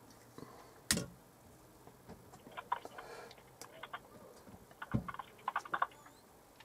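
Faint, irregular clicks and taps, with a sharper knock about a second in and a quick run of clicks a little before the end.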